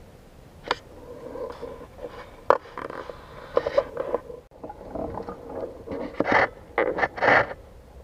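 Irregular rustling and scraping with scattered sharp clicks, the loudest bursts near the end.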